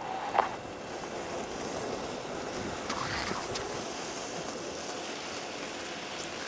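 Steady wind rushing over an outdoor camcorder microphone, with a brief knock about half a second in and a faint distant call around three seconds in.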